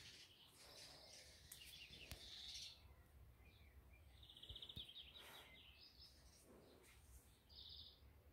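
Faint birdsong: small birds giving short high chirps and quick rattling trills every second or two, with a few faint clicks.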